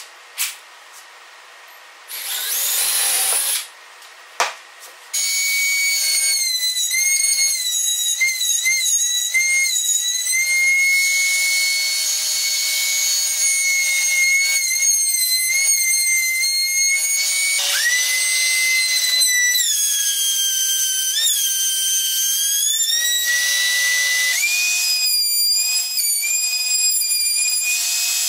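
A bench-mounted power tool cutting plywood. A short burst of cutting noise comes about two seconds in. From about five seconds it runs with a steady high whine whose pitch sags and wavers as the wood is pushed through, stepping down and back up a couple of times.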